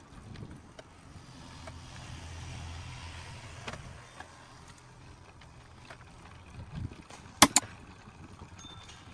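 Outdoor ambience with a low rumble that swells and fades in the first few seconds. About seven and a half seconds in come two sharp clicks in quick succession, the loudest sounds.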